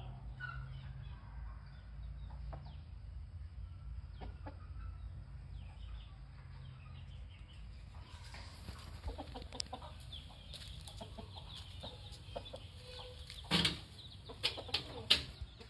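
Rooster clucking softly in short, scattered calls over a low rumble, with a few sharp loud knocks near the end.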